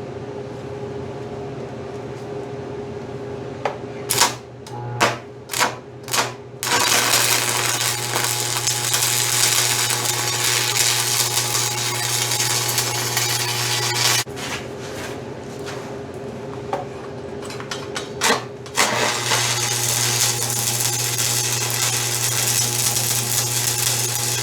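Stick welder humming steadily while a 1/8-inch 7018 electrode is struck: several short crackling starts about four seconds in, then a steady crackling arc for about seven seconds. The arc stops, a few more strikes follow, and a steady crackling arc runs again through the last five seconds.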